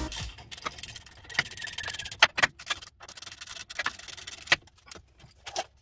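A handful of sharp clicks and light knocks as a brake caliper is worked onto a front disc brake rotor.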